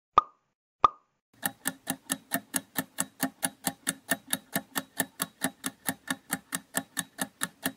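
Countdown-timer ticking sound effect, short even ticks at about four and a half a second, as in a clock. It is preceded by two short pop sound effects as answer options appear on screen.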